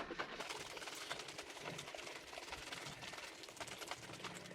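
Bottle of tubeless tyre sealant being shaken, a dense run of faint irregular clicks and sloshing rattles. A low steady hum comes in about four seconds in.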